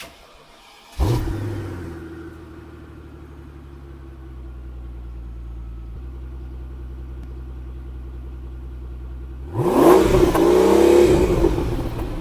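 Mercedes-Benz S600 W221's twin-turbo V12, mufflers deleted, starting about a second in, flaring up and settling to a steady idle. Near the end it is revved once, the pitch rising and falling back.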